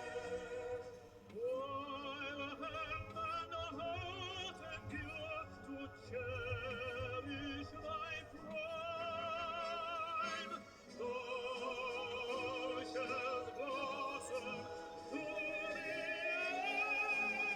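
A vintage vocal record playing on a record player: an operatic singer holding long notes with wide vibrato, phrase after phrase with short breaths between.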